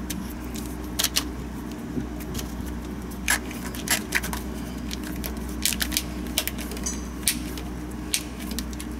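A new oil pressure sending unit being screwed in by hand: irregular small metallic clicks and scrapes as the brass body is turned on its threads, over a steady low hum.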